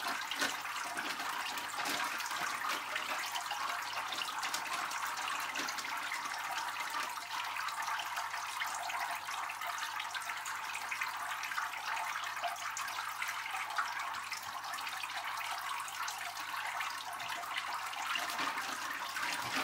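Aquarium water running and splashing steadily at the surface, with small irregular splashes and rustles as hands work in a plastic fish bag.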